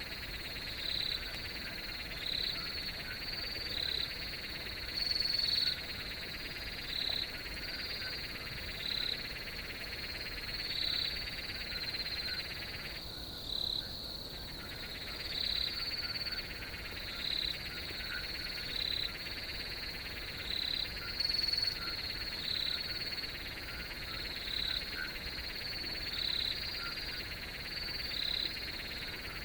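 Crickets chirping in a steady night chorus: a continuous high trill with a louder chirp about once a second.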